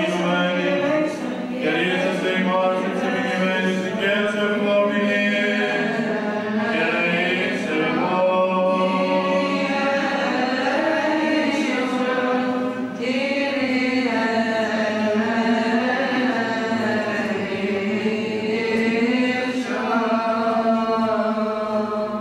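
Greek Orthodox Byzantine chant sung by a group of voices: a melody that winds up and down over a steady held low drone note (the ison), continuing without a break.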